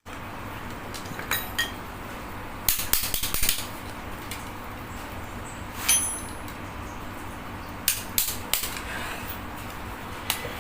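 Metal tools and steering-rack parts clinking and tapping in scattered sharp clicks, a few in quick clusters, over a steady low hum.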